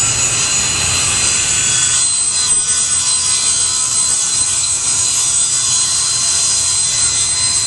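SawStop table saw running and ripping a board along the grain, the wood pushed slowly through the blade with a push stick; a steady, high-pitched whine of the spinning blade cutting.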